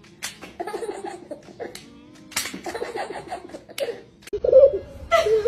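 Asparagus spears snapped in half, several crisp snaps, each followed by a baby's burst of giggling laughter.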